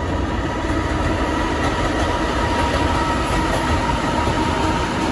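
A pair of coupled EP2K DC electric locomotives passing while hauling a passenger train: a steady rumble of wheels on rails with a steady whine over it, growing slightly louder as they draw near.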